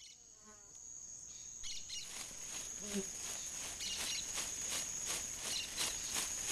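A cricket chirring in one steady high tone, fading in. About two seconds in, a chakapa leaf-bundle rattle starts shaking in an even rhythm, about three dry rustling strokes a second.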